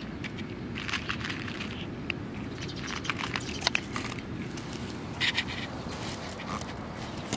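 Black-and-white cat crunching dry kibble from a plate: a run of small crisp crackles and clicks, with a couple of louder crunches a little under four seconds in and again about five seconds in.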